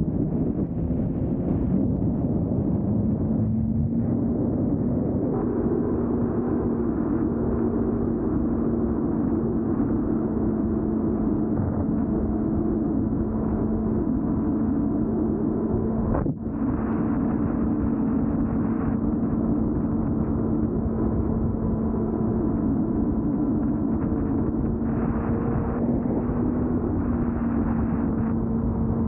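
Suzuki GSX-R 600 inline-four engine running steadily at cruising speed, with wind and road rush. The engine note climbs slightly in the first few seconds and then holds steady. The sound drops out for a moment about halfway through.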